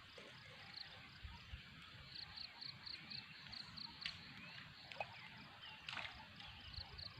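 Faint outdoor background with a frog calling in a run of short high chirps, about three a second, and a few soft knocks.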